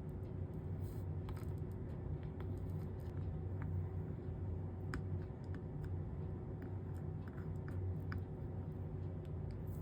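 Soldering iron working along a copper-foiled stained-glass seam, the flux and 60/40 solder crackling in small irregular ticks, over a steady low hum.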